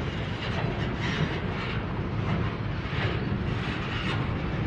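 Freight train of covered hopper cars rolling across a steel truss trestle: a steady low rumble of wheels on the bridge, with brighter clatter coming and going about once a second.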